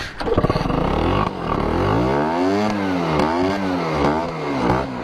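Two-stroke motorcycle engine running and being revved up and down about four times in quick succession.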